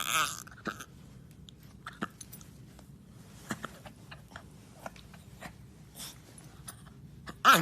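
Dog chewing and gnawing on a chew, with scattered crunching clicks. A short, loud, wavering voice-like sound comes right at the start and again near the end.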